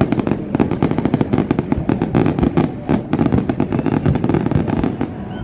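Aerial fireworks going off in a dense, rapid string of bangs and crackles, thinning a little near the end.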